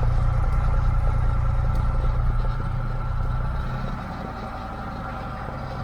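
1962 Cessna 150's Continental O-200 four-cylinder air-cooled engine and propeller idling steadily just after a hand-prop start. The sound drops noticeably quieter about three seconds in.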